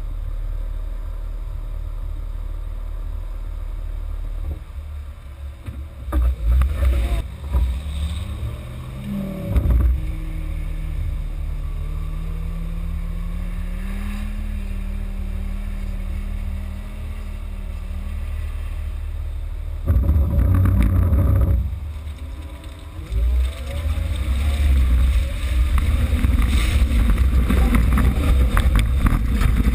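Jeep Wrangler JK's engine pulling the vehicle up a muddy trail, its note rising about eight seconds in and then holding steady under load. Loud rough bursts of rumbling noise break in several times, heaviest near the end.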